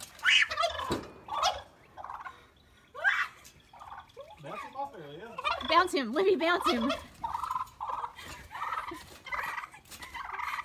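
Domestic tom turkey gobbling several times in rattling, warbling bursts, with a few sharp knocks in between.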